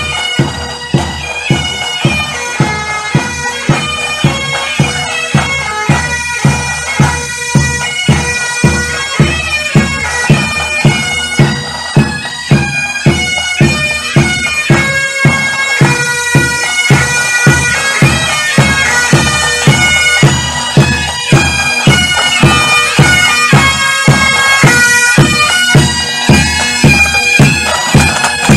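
Military pipes and drums band marching and playing: bagpipes carry a tune over a steady drone while snare and bass drums beat an even march rhythm.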